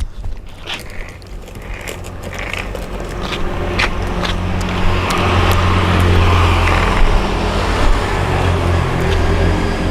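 A motor vehicle's engine running close by, a low hum that grows louder over the first few seconds and then holds steady, with a few light clicks over it.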